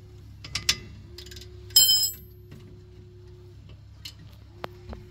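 Steel wrenches clinking against the rear brake caliper as they are fitted to the lower 14 mm caliper bolt: a few light clicks, one sharp ringing metal clink about two seconds in, and two soft clicks near the end.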